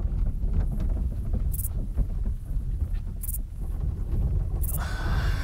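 Sound effect of a loaded wooden cart being hauled: a steady low rumble of its wheels, with a faint squeak about every second and a half. A breathy hiss starts near the end.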